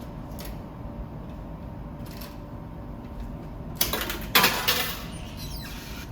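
A few faint clicks, then about a second of clattering strikes near the middle as coins are fed into a cookie vending machine.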